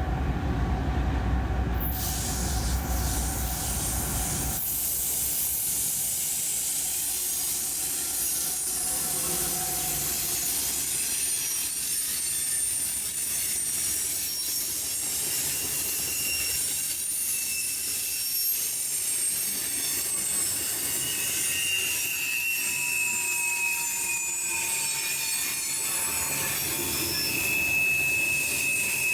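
A train passing close by. A deep engine rumble fades out about four seconds in, then the railcars roll by with a steady hiss and thin, high steel-wheel squeals on the rails, loudest near the end.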